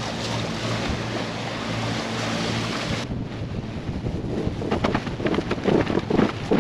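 Wind and sea rushing past a sailing catamaran under way, a steady hiss of water and air; from about four seconds in, the wind buffets the microphone in uneven gusts.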